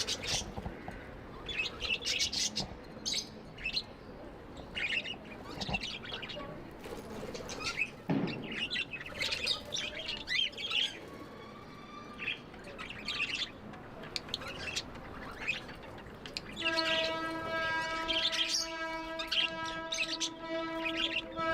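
Budgerigars chirping and chattering in quick, short calls throughout. Near the end a long, steady horn-like tone starts and holds under the chirping.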